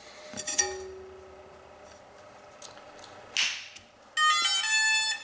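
A short crackling burst at about three and a half seconds, as the 6S battery is plugged into the quadcopter. Then comes a loud run of electronic power-up beeps stepping through several pitches, played by the ESCs through the brushless motors as the quad arms its electronics.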